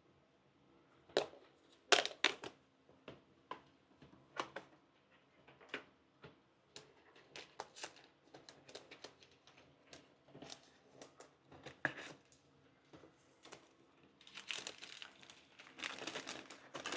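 Cardboard product box and its plastic wrapping being opened by hand: scattered clicks, snaps and scrapes of the packaging, turning to dense crinkling of plastic wrap near the end.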